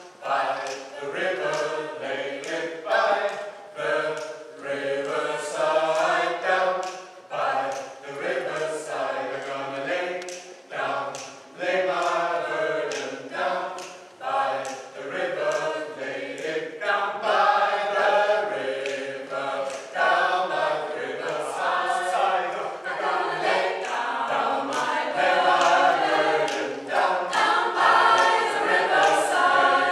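Mixed choir of men's and women's voices singing a cappella in parts, with long held notes and short breaks between phrases.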